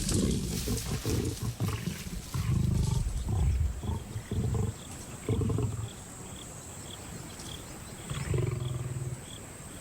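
Lions growling over a kill: a male lion asserting himself and driving lionesses off the carcass. Several short, low growls come in quick succession, then it goes quieter, with one more growl near the end.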